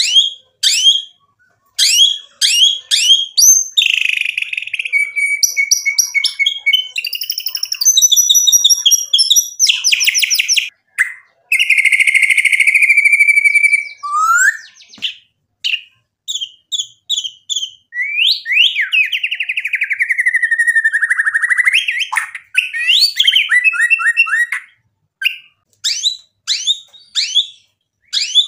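White-rumped shama in full song: a loud, varied string of quick sweeping whistles and fast repeated notes, broken by two long rattling trills of a couple of seconds each.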